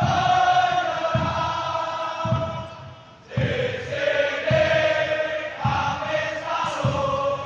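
Crowd of Persib Bandung football supporters chanting a song in unison from the stands, over a steady low beat about once a second. The singing drops away briefly about three seconds in, then starts again.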